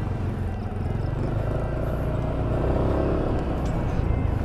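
Yamaha scooter's engine running steadily while ridden, picking up speed.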